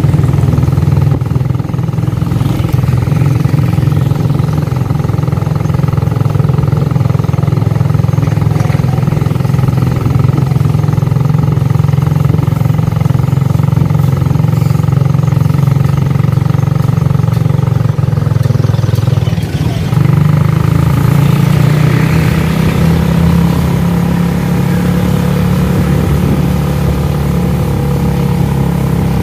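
Motorcycle engine running steadily on the move, with road and wind noise; the engine note steps up slightly about twenty seconds in.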